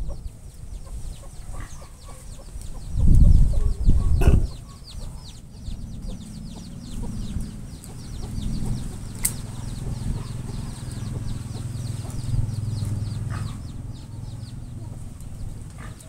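Chickens clucking, with rapid high chirps repeating throughout. A short burst of low rumbling comes about three seconds in.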